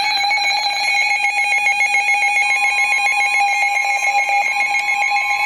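Emergency Alert System alert tones for a severe thunderstorm warning: a loud, steady electronic tone, joined about two and a half seconds in by a second, slightly higher tone, with a fast warbling pattern of higher tones above them.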